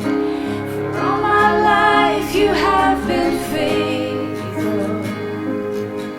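Worship song: acoustic guitar with a singing voice, one sung phrase rising and falling about a second in and fading out around four seconds.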